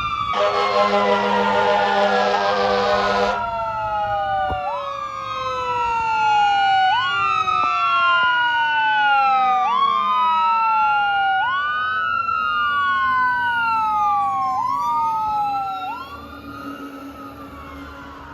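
Fire engine siren sweeping up and down about every two seconds, with a blast of the truck's air horn lasting about three seconds near the start. The siren gets quieter near the end.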